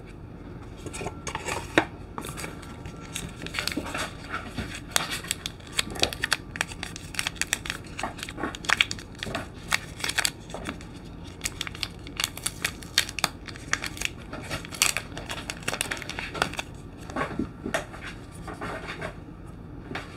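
Hands handling unboxing packaging: paper booklets, card and plastic crinkling and rustling, with many small irregular clicks and taps throughout.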